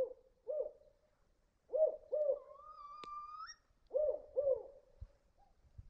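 Spotted owl hooting: short low hoots in pairs and small groups, with a thin rising whistled note in the middle.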